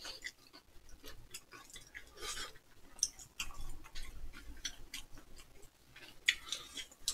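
People chewing food, with small irregular wet mouth clicks and smacks.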